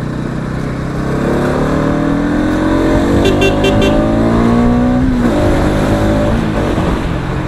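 Bajaj Pulsar NS200's single-cylinder engine accelerating hard through the gears: its pitch climbs for about five seconds, drops at an upshift, then climbs again. Four short high beeps are heard about three seconds in.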